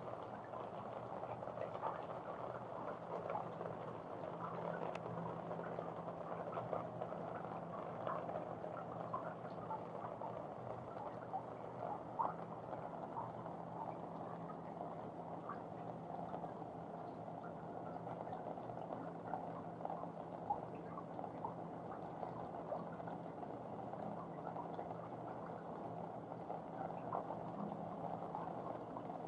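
Rain falling on a balcony: a steady dense patter of small drips, with a faint low hum underneath.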